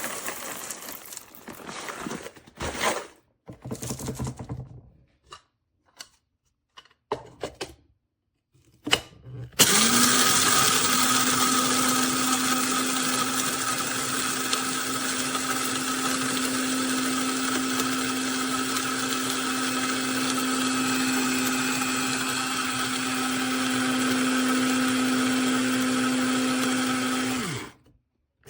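Amazon Basics electric blade coffee grinder: a few clicks and rattles as it is handled, then its motor runs steadily for about 18 seconds, grinding with a steady hum, before it winds down and stops near the end.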